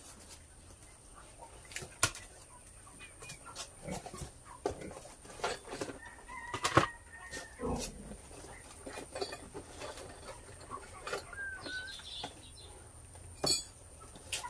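Broiler chickens clucking, with a few short high calls, among scattered sharp clicks and knocks; the loudest knock comes about seven seconds in.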